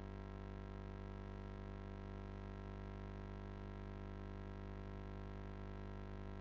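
Steady low hum with a faint hiss, unchanging throughout: the recording's background noise.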